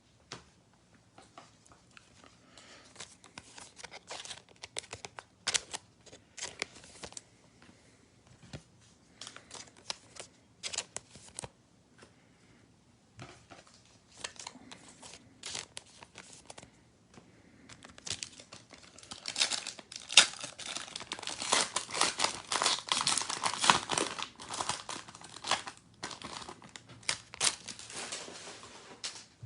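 Plastic trading-card pack wrapper crinkling and tearing as a pack is opened, with cards being handled. Scattered rustles and clicks come first; the crinkling gets dense and loudest about two-thirds of the way through.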